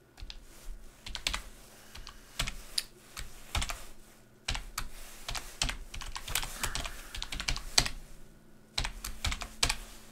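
Typing on a computer keyboard: irregular runs of keystrokes broken by a couple of short pauses.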